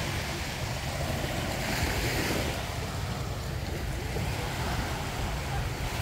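Small waves washing onto a sandy beach, with a wash that swells about two seconds in. Wind is rumbling on the microphone underneath.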